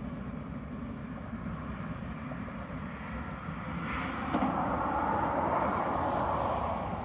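Steady distant expressway traffic rumble, with the whoosh of a passing vehicle swelling from about three seconds in, loudest around four to six seconds, then fading.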